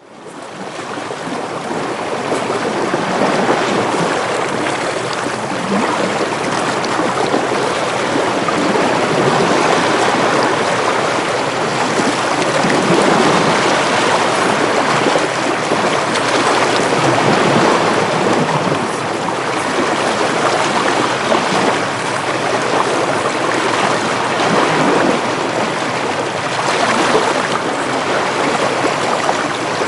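Ocean waves washing in with wind, a steady rushing noise that fades in over the first few seconds and then holds.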